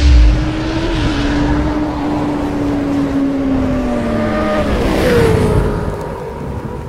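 Motorcycle engine sound effect in an animated intro. A loud low boom opens it, then the engine note is held and slowly sinks in pitch, revs up in a quick rising glide about five seconds in, and fades away.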